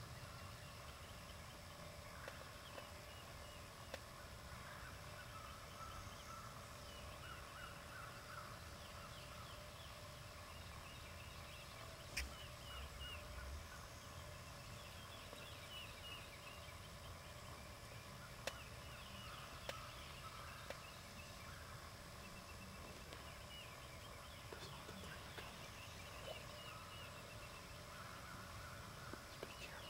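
Wild turkey gobbling faintly several times. A sharp click sounds about midway, and another a few seconds later.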